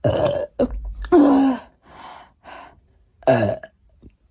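A woman burping loudly, three times: a long burp at the start, another about a second in, and a shorter one just past three seconds, each sinking in pitch.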